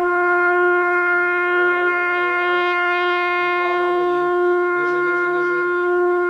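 Trumpet playing one long held note that starts with a sharp attack and holds steady in pitch and loudness: a long-tone exercise in keeping the intonation from drifting up or down.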